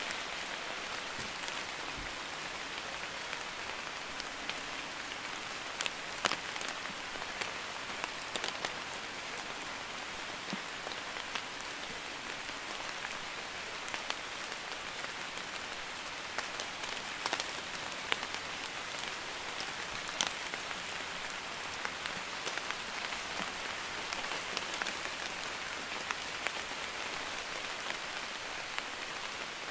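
Light drizzle falling steadily: an even hiss of rain with scattered sharper taps of individual drops.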